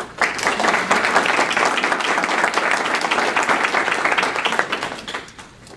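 Audience applauding: many hands clapping at once, starting just after a speaker's closing "thanks" and fading out about five seconds in.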